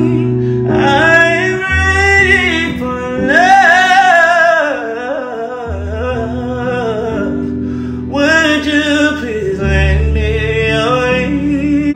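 A man singing a slow song without clear words, with long held notes and wavering runs, over instrumental backing whose low held chords change about every four seconds.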